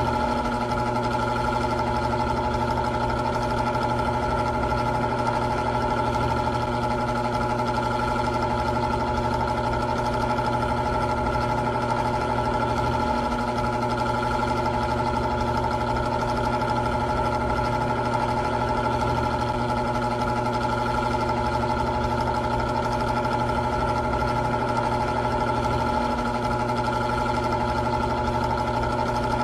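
Old electric fan running steadily, its motor humming with a few steady whining tones over the rush of the blades.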